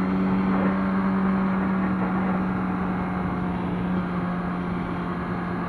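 Kawasaki ZX-6R inline-four engine droning at a steady motorway cruise, over a steady rush of wind and road noise. The sound eases off slightly toward the end.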